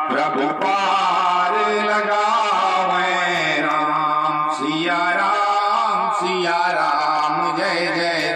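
A man singing a Hindu devotional chant into a handheld microphone, drawing out long notes that waver in pitch, with short breaks between phrases.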